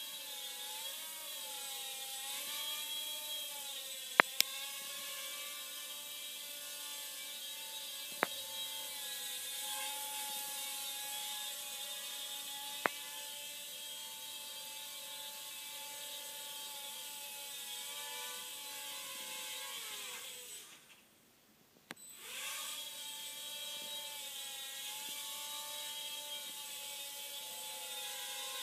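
Blade Nano QX micro quadcopter's four small motors and propellers whining in flight, the pitch wavering up and down as the throttle shifts, with a few sharp ticks. About two-thirds of the way through the whine stops for about a second and a half, then spins back up.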